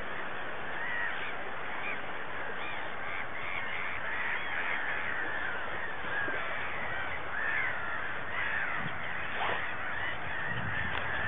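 A flock of birds calling over one another, many short overlapping calls throughout, over a steady hiss.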